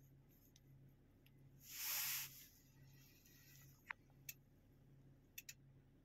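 Near silence with a faint steady hum, a brief hiss about two seconds in, and a few faint clicks in the second half.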